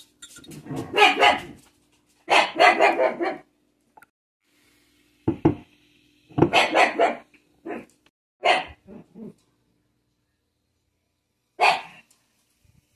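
Dog barking in bunches of loud barks with short pauses between, then one last bark near the end.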